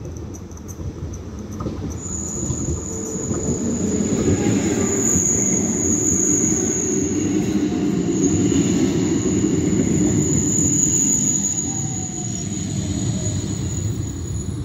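Porto Metro CRRC light-rail tram passing: the rumble of its wheels on the rails builds over a few seconds, holds, then eases off. A steady high-pitched whine sounds over it from about two seconds in.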